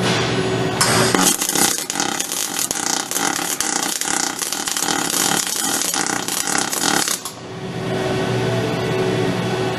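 Robotic MIG welding arc from a Fanuc ArcMate 100iB's torch with a Miller Auto Invision power source: a dense, loud crackle that strikes about a second in and cuts off sharply near the end, as the weld bead is laid.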